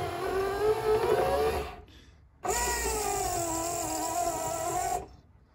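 1964–66 Thunderbird rear quarter-window regulator driven by its electric window motor, a gear-driven whine that runs twice with a short stop between, the pitch shifting during each run. The mechanism has just been rebuilt and reassembled and is being tested on the bench.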